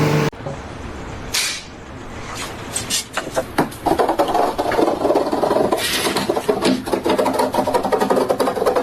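A held tone cuts off right at the start. A short swish follows, then from about three seconds in a dense run of rapid clicks and scraping, like hard pieces rubbing and knocking together.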